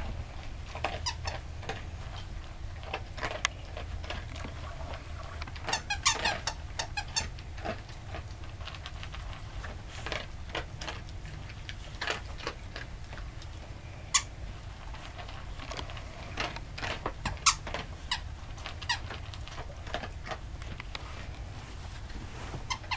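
Plush squeaky toy squeaking as a dog chews and bites it: short squeaks at irregular intervals, with a quick cluster of squeaks about six seconds in.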